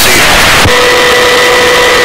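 Loud steady hiss of helicopter noise through the onboard audio feed, with a faint steady tone coming in a little over half a second in.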